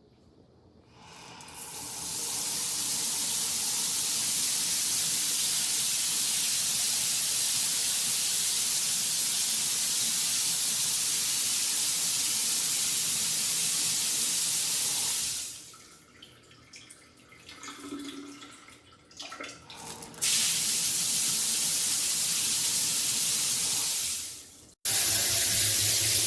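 FASTRAS handheld LED shower head spraying water: a steady hiss of the spray that builds in about a second in, stops suddenly about 15 seconds in, and comes back on abruptly about 20 seconds in before cutting off near the end.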